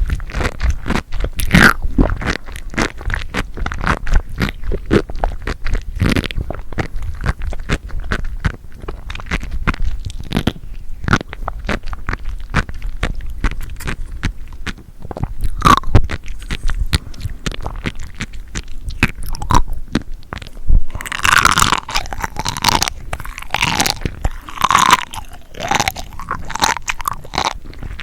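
Close-miked chewing of crunchy, wet seafood: a dense run of small crackles and clicks, with louder, wetter bites about three quarters of the way through.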